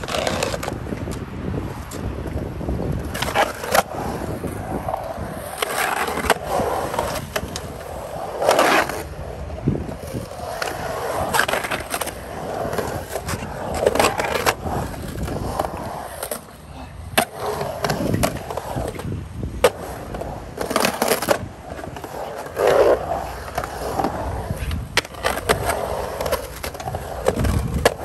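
Skateboard carving a concrete pool: a continuous rumble of wheels rolling over concrete, broken by many sharp clacks and grinding scrapes as the trucks hit and slide along the pool coping.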